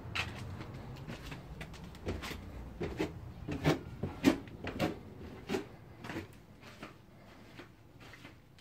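Footsteps going down basement stairs, a step roughly every half second, then quieter steps on the floor below.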